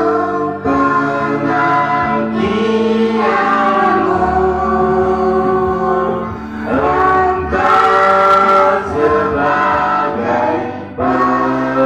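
A group of children and a man singing together into microphones, in slow phrases with long held notes and short breaks between them.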